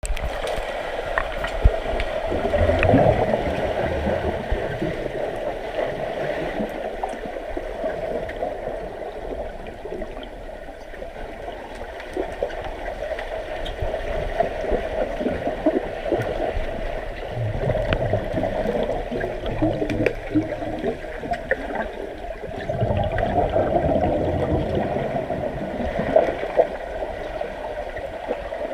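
Pool water churning and gurgling with bubbles as swimmers thrash about, continuous and rather dull, swelling louder a few times and broken by occasional faint clicks.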